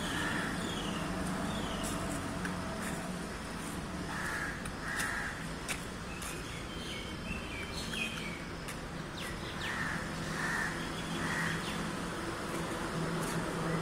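Street ambience with birds chirping in the trees, short repeated chirps and a few soft calls, over a steady low hum.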